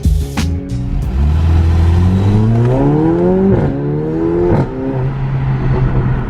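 Mercedes-AMG A45's turbocharged four-cylinder engine, fitted with an aftermarket exhaust, accelerating hard: the revs climb, drop at two upshifts, climb again, then settle to a steady cruise.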